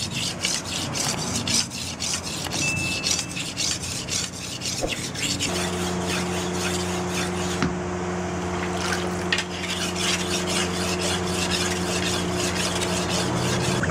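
Steel sickle blade, forged from a car leaf spring, being honed on a wet sharpening stone: rhythmic rasping strokes, about three or four a second. After about five seconds the strokes turn lighter and irregular over a steady low hum.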